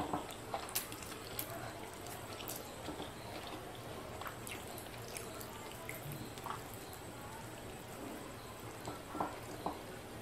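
Fingers mixing white rice and picking at a fried fish on a plate, with scattered soft, wet clicks and squishes over a steady background hiss.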